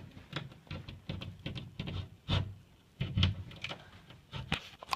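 Drywall being cut and worked open by hand: irregular taps, clicks and scrapes, with two louder knocks a little over two and three seconds in.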